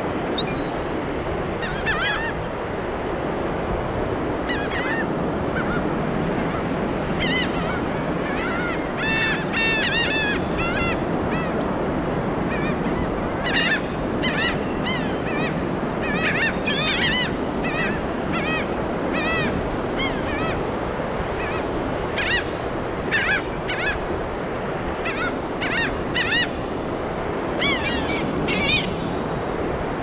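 A flock of laughing gulls calling: many short, arched calls, scattered at first and then coming in quick runs from about halfway through. Under them runs a steady rush of surf.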